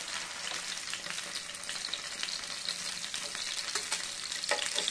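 Hot oil sizzling and crackling in a frying pan around masala-coated para fish steaks as they are lifted out with a steel spatula, with a brief knock near the end.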